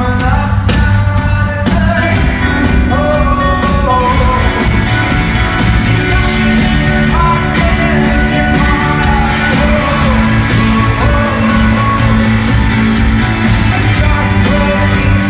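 Rock band playing live: a singer over electric guitar, bass and a steady drum beat, played loud.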